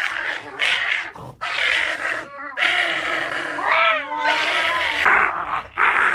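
Cats yowling and caterwauling in repeated harsh cries, with a wavering, bending cry about four seconds in.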